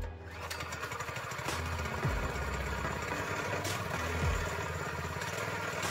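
Harbor Freight Predator 212cc single-cylinder engine on a go-kart running at low speed, with a brief low thump about every two seconds.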